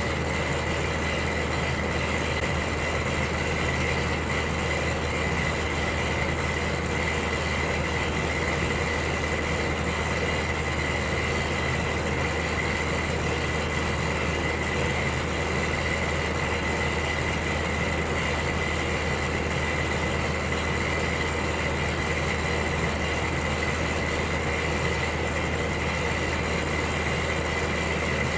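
Electric heater running: a steady low hum under an even rushing noise, with a faint steady high whine.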